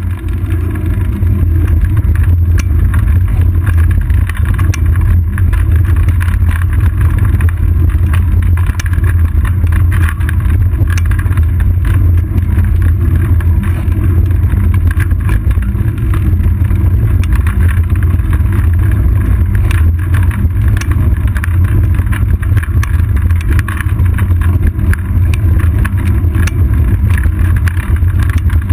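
Steady low rumble of wind and road vibration picked up by a seat-post-mounted GoPro Hero 2 on a road bike rolling along asphalt, with scattered small clicks and rattles throughout.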